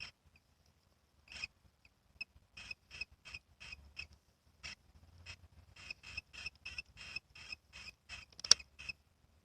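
Dwarf hamster snoring in its sleep: a string of short, high squeaky snores, sparse at first and then about two a second, with a louder one near the end.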